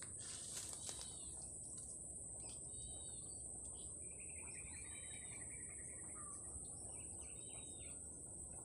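Swamp-side ambience: a steady, high-pitched insect buzz, with a bird giving short double chirps every couple of seconds and a rapid trill of about two seconds near the middle.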